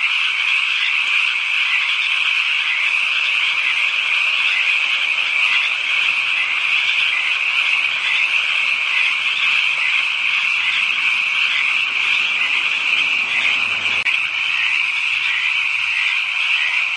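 A dense chorus of many frogs calling at night, a steady high-pitched din of overlapping calls with no single voice standing out.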